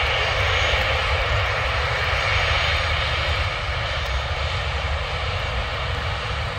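Boeing 737 jet engines running with a steady roar as the airliner rolls along a wet runway, the sound easing slightly.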